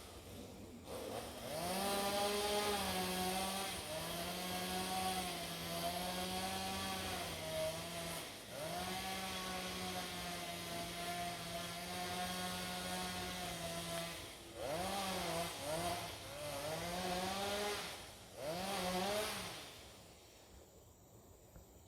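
Small engine running at high speed: it revs up, holds steady for several seconds at a stretch, and is throttled down and up again in short revs near the end before it stops.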